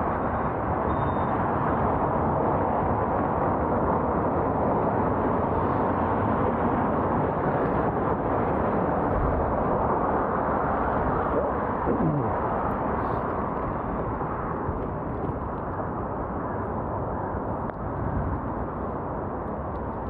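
Steady rush of wind and road noise picked up while riding a bicycle. A brief falling tone comes about twelve seconds in.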